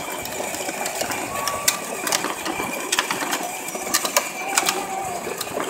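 Ride-on toy Jeep running along a road: its electric gear motor whirring steadily while its hard plastic wheels roll, with scattered clicks and rattles from the wheels and body.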